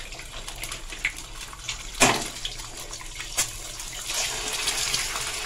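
Eggs being cracked into a frying pan of hot vegetable oil: a sharp crack about two seconds in and another a little later, then the eggs sizzling steadily in the oil.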